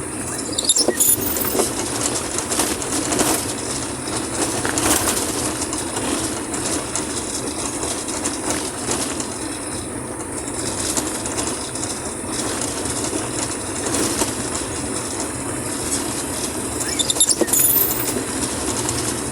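Vehicle driving over a rough, muddy dirt road: steady engine and road rumble with rattling jolts, and a brief high squeak about a second in and again near the end.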